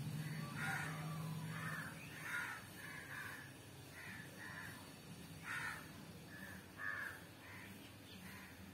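Crows cawing repeatedly in short, separate calls, the loudest about two and a half, five and a half and seven seconds in.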